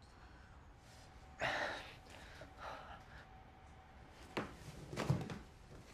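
A woman's pained gasps and sharp breaths, the strongest about one and a half seconds in, followed near the end by two short knocks.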